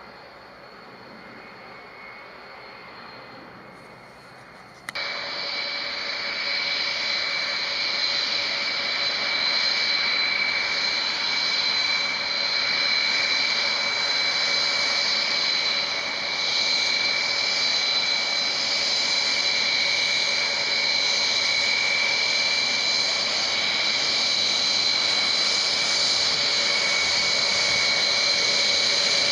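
Jet aircraft engines running with a steady, high whine over a loud rush, as the jet taxis. The first few seconds are only a low hiss, and then the engine noise cuts in suddenly about five seconds in.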